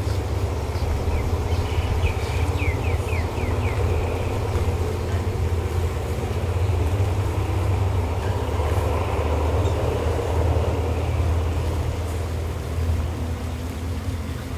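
Diesel-electric GEA-class locomotive hauling a passenger train out of the station: a steady low engine drone with the rumble of the coaches rolling by. A few bird chirps come about two to four seconds in.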